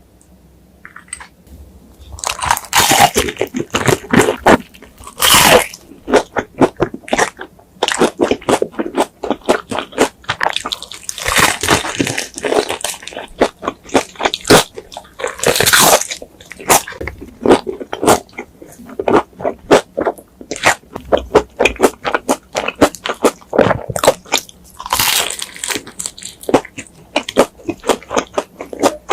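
Close-miked crunching and chewing of crispy fried chicken: rapid crackling bites and chews, with louder crunches every few seconds.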